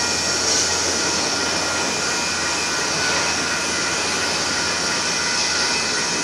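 Autorack cars of a Union Pacific manifest freight train rolling past as it pulls out of a siding: a steady rumble and hiss of steel wheels on the rails, with a few faint steady high tones over it.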